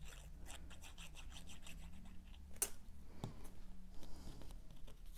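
Hands handling and pressing together small cardstock paper pieces: light rubbing and rustling with small clicks, and two sharper ticks about half a second apart near the middle.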